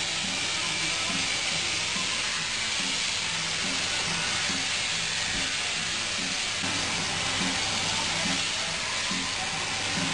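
Electric sheep-shearing handpiece, driven through a drop tube from an overhead shearing plant, running as it cuts through a sheep's fleece: a continuous, steady hiss.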